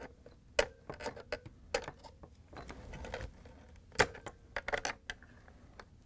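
Irregular sharp clicks and plastic taps, loudest just after half a second in and about four seconds in, with a quick cluster near the end: wire connectors being worked loose on a dishwasher control board and the plastic control panel being handled.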